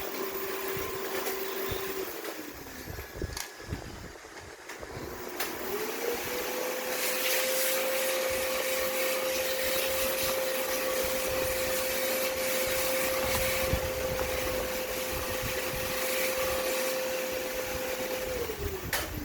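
A high-speed electric motor running at a steady pitch. It winds down about two seconds in, spins up again a few seconds later, runs steadily, and winds down near the end.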